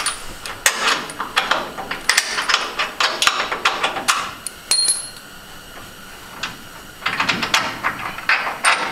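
Short metallic clinks and knocks as a steel lower A-frame (control arm) with frictionless bushings is worked by hand out of the chassis frame mounts. A quieter spell comes about five seconds in, then the clinking starts again near the end.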